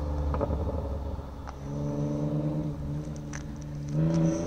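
Straight-piped Mercedes-Benz C240 V6 exhaust running with a steady drone. It swells louder and slightly higher about four seconds in, with a few sharp pops.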